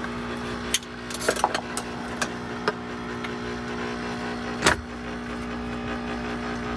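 A steady mechanical hum, with scattered clicks and knocks, one louder knock about two-thirds of the way through.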